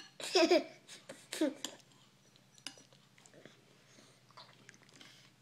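A toddler vocalizes twice in short pitched squeals or babbles, about half a second in and again about a second and a half in. After that come faint scattered clicks and mouth sounds of spoon-feeding and chewing.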